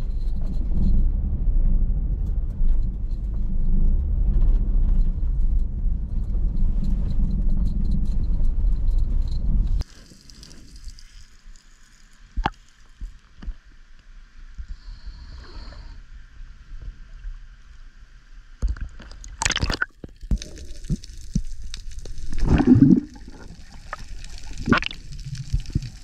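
Steady low rumble of a car driving at night, which cuts off abruptly about ten seconds in. It gives way to quiet water lapping and gurgling around a swimmer at the sea surface, with a few splashes, the loudest about halfway through the second part.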